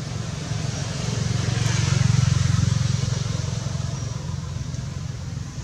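Low drone of a passing motor vehicle's engine, growing louder about two seconds in and then fading away.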